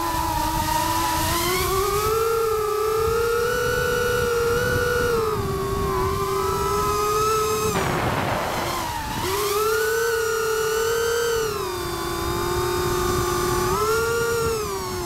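FPV quadcopter's brushless motors and propellers whining, heard from a camera on board, the pitch rising and falling smoothly with the throttle. About eight seconds in the whine drops away under a rush of air noise for about a second, then the motors spool back up.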